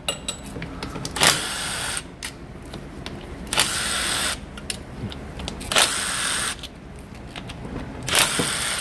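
Cordless power driver spinning out the stator cover bolts on the engine's left side, in four short bursts of under a second each, a couple of seconds apart.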